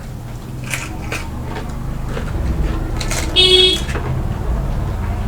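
Steady low rumble of street traffic, with a short, high car or motorbike horn honk about three and a half seconds in and a few sharp crunchy clicks near the start.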